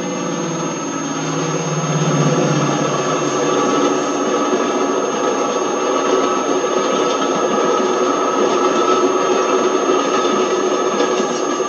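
Class 55 Deltic diesel locomotive passing, its twin Napier Deltic two-stroke engines running; the low engine note fades about three seconds in, leaving a steady rush from the passing coaches. A thin, steady high whine runs underneath.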